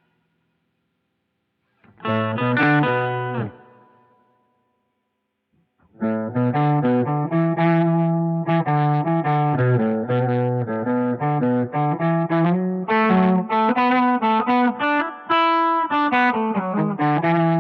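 Electric guitar played through an Electro-Harmonix Soul POG polyphonic octave and overdrive pedal: a short phrase about two seconds in that rings out, a pause, then a continuous run of picked notes and chords from about six seconds on.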